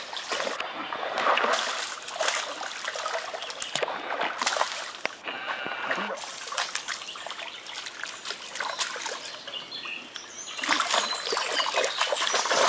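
Water splashing and dribbling in irregular bursts, louder near the end, as a hooked fish is brought in at the surface.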